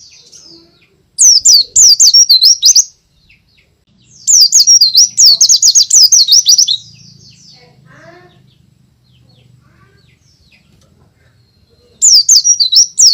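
White-eye (pleci, Zosterops) singing in loud bouts of rapid, high, rippling notes: one about a second in, a longer one at about four seconds, and another near the end. Fainter, lower chirps fill the gaps between bouts.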